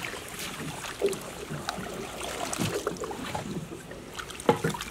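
Splashing and rustling in shallow, weedy water at the edge of a pond, with scattered small knocks.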